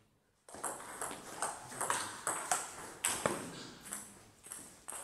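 Table tennis rally: the ball clicks sharply back and forth off the bats and the table several times a second, starting about half a second in and thinning out after about three and a half seconds.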